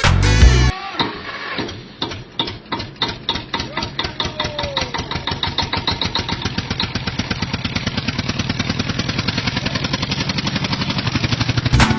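An engine starting up: slow, separate chugs that speed up into a fast, steady running beat.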